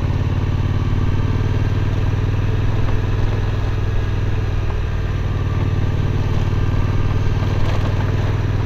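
Suzuki V-Strom 1050's V-twin engine running steadily while the motorcycle is ridden.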